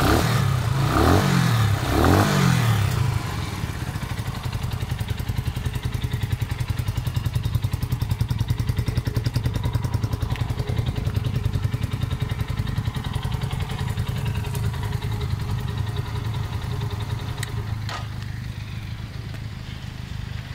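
KTNS Caferacer 250 motorcycle engine and exhaust: the throttle is blipped about three times in the first few seconds, each rev rising and falling, then the engine settles to a steady idle with an even, rapid exhaust pulse that gets somewhat quieter near the end.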